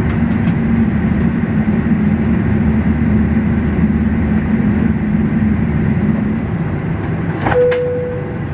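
Steady cabin noise of a Boeing 777-300ER taxiing, its engine and air-system hum easing off about six seconds in. Near the end there is a click and then a short steady tone.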